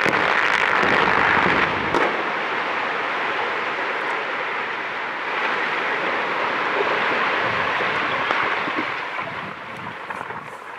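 Sustained rushing roar of blasted rock sliding down the rock face into the pit lake and churning up the water, just after the blast goes off, with a sharp crack about two seconds in. It eases off near the end.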